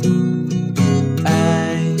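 Acoustic guitar strumming chords, with a voice starting to sing the song's first line about a second in.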